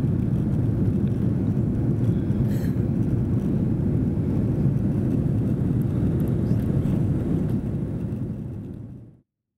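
Steady low rumble of a jet airliner in flight, engine and airflow noise heard inside the cabin, fading out and stopping abruptly near the end.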